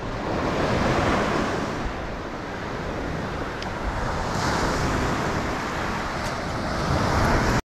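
Surf washing up the beach mixed with wind on the microphone: a steady rushing noise that swells a little about a second in and again around four and a half seconds.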